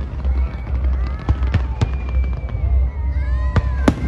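Fireworks display: a run of sharp bangs from shells bursting overhead, about five in four seconds, over a steady low rumble.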